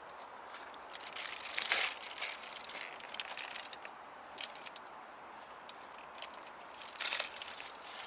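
Aluminium foil crinkling as a packet of pastries is unwrapped by hand, in irregular short bursts, the loudest about two seconds in.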